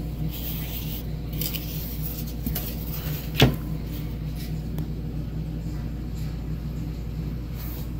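Steady low hum with light handling rustles, and one sharp tap a little over three seconds in.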